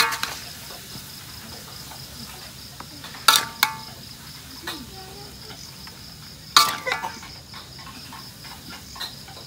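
Metal spatula scraping and clanking against a steel wok while serving food out of it: a ringing strike at the start, two more about three seconds in, and a cluster near seven seconds. Crickets chirp steadily throughout.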